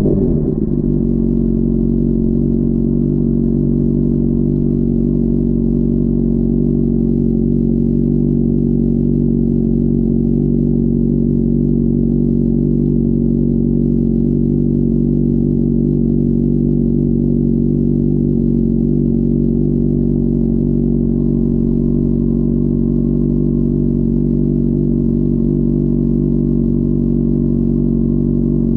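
Honda CBR600RR inline-four engine idling steadily, its revs settling down about half a second in after falling off.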